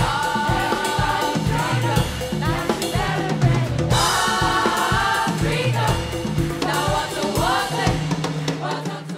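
Upbeat music with a group of voices singing over drums and bass, starting to fade out near the end.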